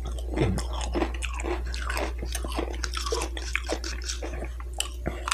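Close-up crunching and chewing of Doritos tortilla chips dipped in ranch, a run of irregular crisp crunches.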